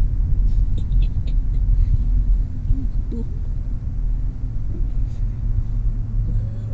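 Low, steady rumble of a car's engine and tyres heard from inside the cabin while driving.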